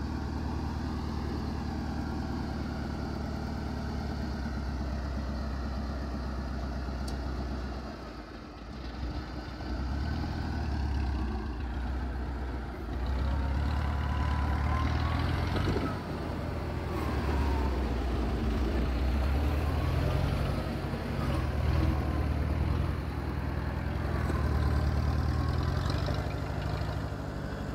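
Engine of a motor cart loaded with watermelons running as it creeps slowly along a bumpy field bank. It dips briefly about 8 seconds in and is louder in the second half.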